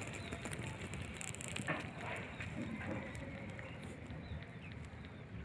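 Steady outdoor background noise with scattered faint clicks and a brief knock about a second and a half in.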